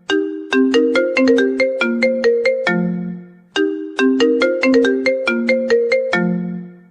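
Mobile phone ringtone melody: a short tune of quick struck notes that fade away, played through once and started again about three and a half seconds in.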